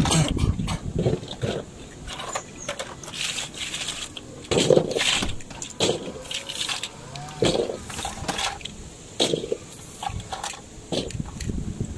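Small plastic toy crane truck being handled: irregular clicks, knocks and rattles as its plastic boom arm and parts are moved and the toy is turned in the hands.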